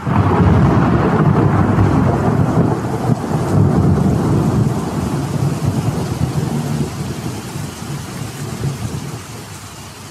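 Storm sound: a long, low rumble of thunder over a steady hiss like heavy rain. It starts suddenly and slowly dies away.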